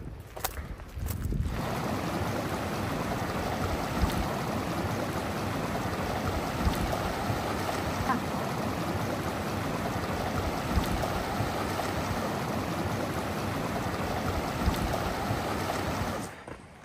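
Steady rushing of running water, even and unbroken. It starts suddenly about a second and a half in and cuts off just before the end.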